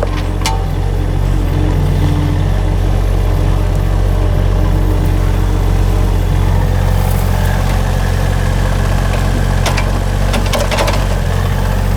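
Small engine running steadily at a constant speed, with a few sharp clicks and knocks near the end.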